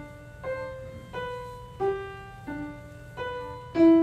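Upright acoustic piano played one note at a time: a slow, plain melody of about six single notes, each left to ring and fade. The last note, near the end, is struck hardest.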